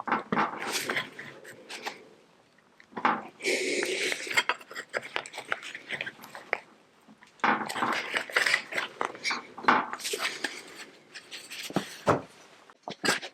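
Steel sheet patch being shaped by hand over a steel T-dolly and test-fitted, with bursts of light metallic clatter and scraping.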